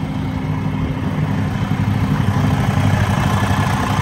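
Cummins X15 15-litre inline-six diesel in an International LoneStar semi truck idling steadily and quietly with the hood open, getting a little louder toward the end.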